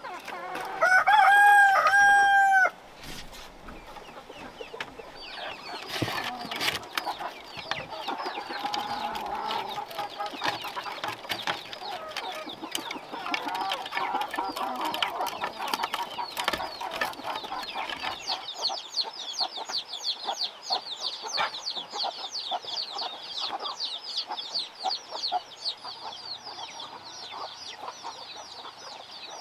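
A rooster crows loudly about a second in. Hens cluck over scattered clicks and rustling of straw as eggs are gathered from a woven basket nest. In the last third, rapid high-pitched chirping takes over.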